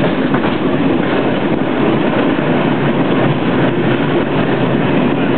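An open tram running along street rails, heard from on board as a steady noise of wheels and car.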